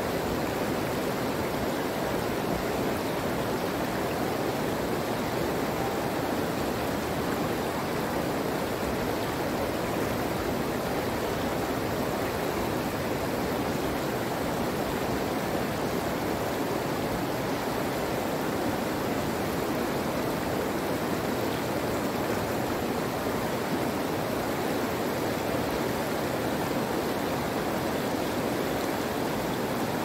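Running water rushing steadily, an even hiss with no breaks, splashes or changes.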